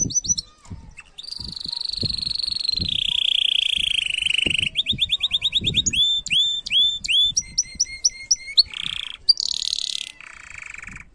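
Domestic canary singing a long, varied song: a sustained rolling trill, then fast rising notes and repeated swooping phrases, ending in harsher notes. The song stops shortly before the end.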